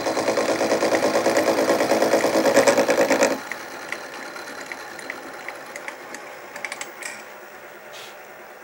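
A 16 mm end mill on a mini mill cutting brass: the dense, steady cutting noise of a light facing pass across a bearing half. About three seconds in, the cutting stops abruptly as the cutter leaves the work, and a much quieter spindle keeps running with light ticks.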